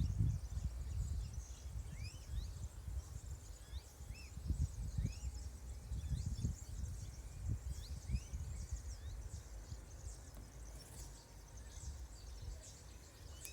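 Small birds calling in short, rising chirps again and again, over an uneven low rumble.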